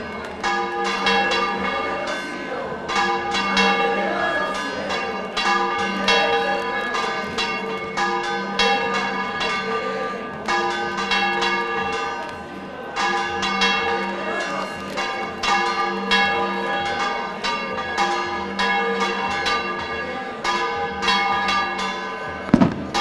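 Church bells ringing a continuous, rapid peal, several strikes a second with long overlapping ringing tones. A single sharp bang comes near the end.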